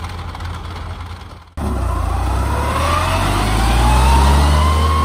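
Engine of a small tracked rice-hauling carrier running low and steady, then after a sudden break about a second and a half in, running louder with its pitch rising as it accelerates away loaded with sacks of rice.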